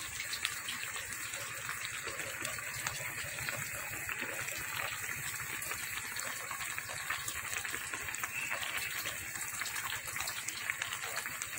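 Coconut-milk broth of a fish stew bubbling steadily in the pan, a continuous stream of small pops.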